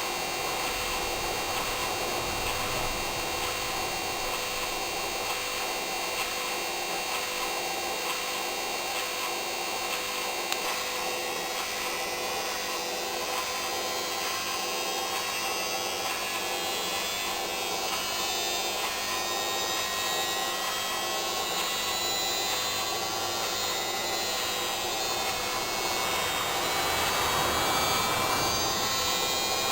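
Hoover washing machine running, its motor (taken from a Candy Aliseè) giving a steady hum and whine; in the second half the whine slowly rises in pitch as the drum speeds up, growing a little louder near the end.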